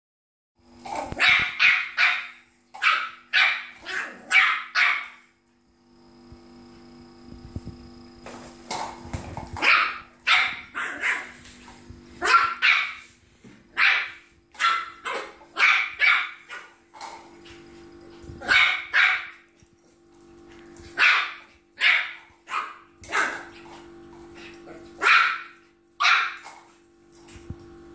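Yorkshire terrier puppy barking repeatedly in short, high-pitched yaps at a glowing gyroscopic Powerball on the floor, in quick runs with a pause of a few seconds about five seconds in.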